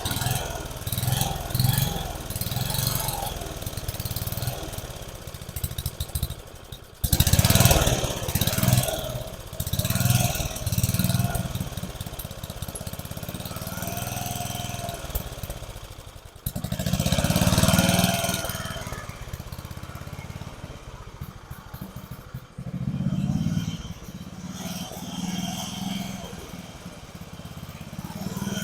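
Old riding lawn mower's small gasoline engine running roughly, surging up and sagging back every few seconds and nearly dying twice. The owner takes the hunting for a sign that it is starving for fuel and the carburetor needs adjusting.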